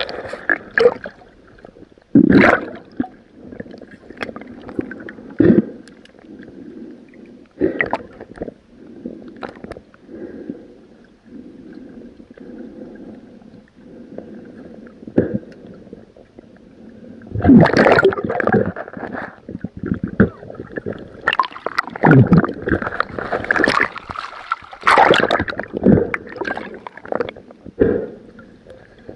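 Water gurgling and bubbling around a submerged camera, muffled as underwater sound is, with irregular loud splashy bursts that cluster thickly in the second half.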